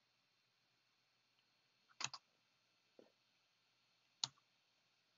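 Near silence broken by a few short clicks as chess moves are stepped through on a computer: a quick double click about two seconds in, a faint one a second later, and a single sharp click a little after four seconds.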